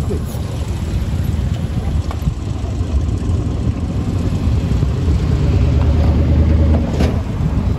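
Old International pickup truck with a tall vertical exhaust stack pulling slowly past, its deep low engine rumble growing louder as it passes. A short sharp click near the end.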